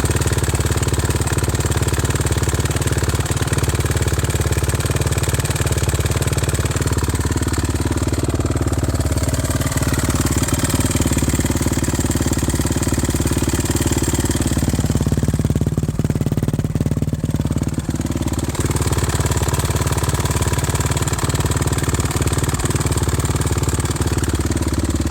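Carbureted Suzuki RM-Z450 single-cylinder four-stroke dirt bike engine idling steadily with a knocking noise, which the owner takes for a rod knock; the seller called it typical of this year's Suzuki.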